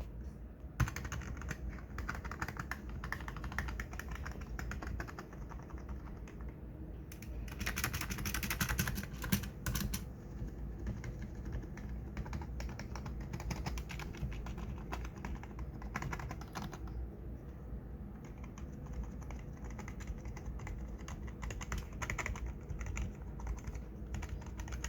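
Backlit gaming keyboard keys being pressed one after another, a continuous run of clicking keystrokes that comes thickest about eight seconds in.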